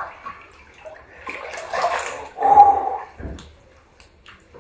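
Water sloshing and splashing in an outdoor wood-fired hot tub as a person shifts in it. A short, loud pitched cry about two and a half seconds in, followed by a low thump.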